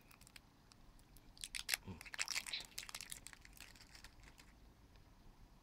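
Thin plastic film being peeled and torn off a ball-shaped plastic lip balm container: a faint run of crinkling and crackling, densest from about one and a half to four and a half seconds in.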